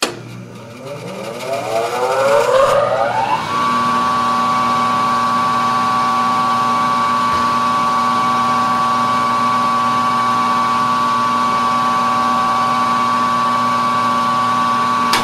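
RIKON 10-326 14-inch belt-driven bandsaw switched on: its motor whine rises in pitch for about three seconds as it comes up to speed, then settles into a steady, even hum of smooth running. A short click sounds right at the end.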